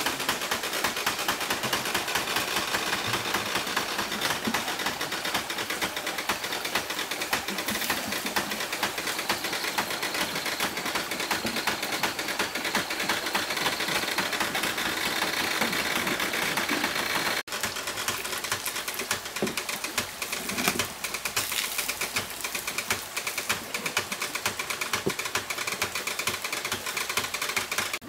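A bamboo water wheel turning in a stream, with water splashing and the wheel clattering in a dense, steady crackle. The texture changes abruptly about two-thirds of the way through.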